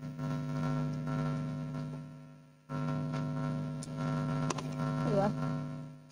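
Electrical mains hum, a steady buzz. It cuts in suddenly, fades away, then cuts in again about two and a half seconds in and fades out near the end, with a few faint clicks on top.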